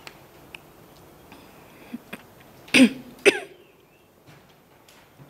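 A woman coughs twice, about half a second apart, clearing her throat.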